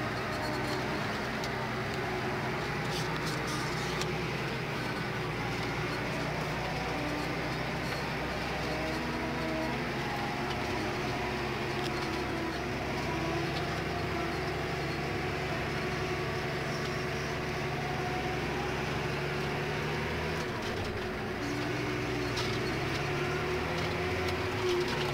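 New Holland T6050 tractor's six-cylinder diesel engine running steadily under load, heard from inside the cab as the tractor drives across a field, with a few tones that shift up and down in pitch.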